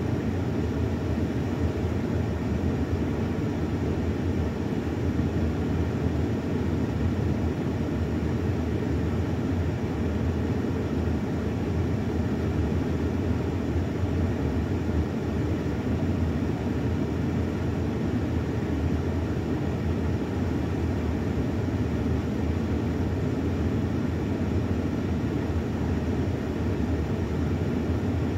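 Steady low rumble of a parked van idling, heard from inside the cabin; it holds an even level throughout.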